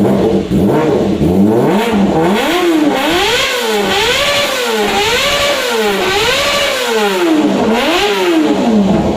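Kawasaki ZX-25R's 250 cc inline-four, on an R9 full titanium exhaust, revved repeatedly while stationary: the pitch climbs and drops about once a second in a string of throttle blips, then falls back to idle near the end.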